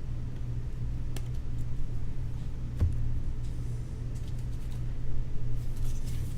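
A steady low hum, with a few light clicks about one and three seconds in and a rustle near the end.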